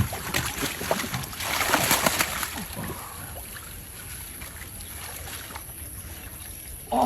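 Water splashing and sloshing, louder in two short spells in the first few seconds, then settling to a lower wash.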